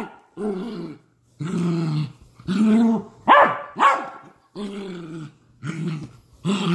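Dachshund growling and barking in a string of about eight short bursts, play-growls while it wrestles with a person's hand.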